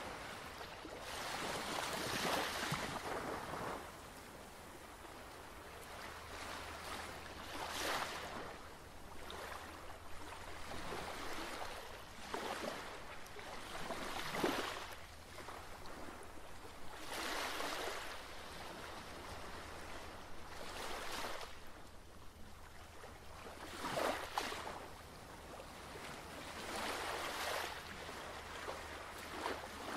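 Surf washing in, a rushing hiss that swells and ebbs every few seconds, over a faint steady low hum.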